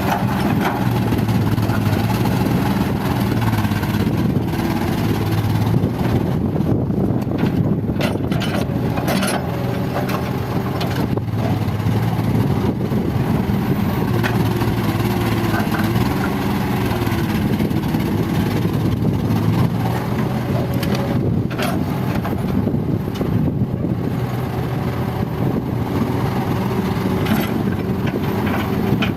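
Heavy diesel earthmoving machinery running steadily, with the engine note wavering briefly about halfway through.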